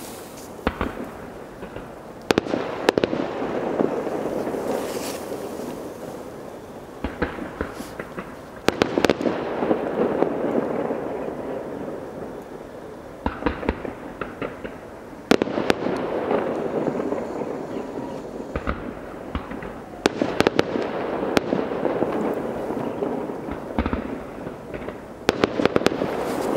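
Aerial firework shells exploding in groups of sharp bangs about every five to six seconds, each group trailing off in a long rolling echo, with quick runs of smaller crackling reports in between.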